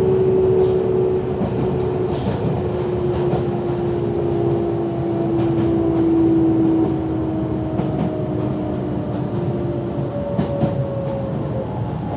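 Kobe Electric Railway train running: a steady rumble with a whine from the motors and gears that falls slowly in pitch, and light clicks from the wheels over the rails.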